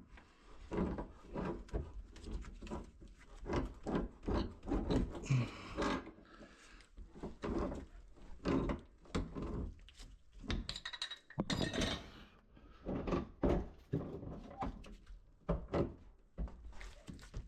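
Irregular knocks, clunks and scrapes of hand tools and pipe fittings as a cap is fitted onto an open gas pipe.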